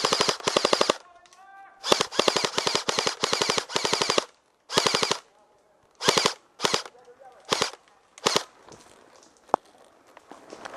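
Airsoft gun firing on full auto in rapid bursts. A burst runs out about a second in, a longer burst of about two seconds follows, then one short burst and four brief ones spaced well apart.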